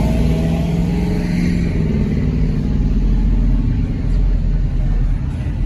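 A pickup truck's engine running with a low, steady rumble, its pitch rising slightly about two seconds in.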